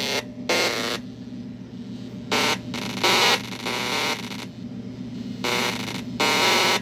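Circuit-bent electronic sound-effects toy giving short bursts of distorted, glitchy sound, about seven with gaps between them, each cutting in and out abruptly, over a steady low electrical hum.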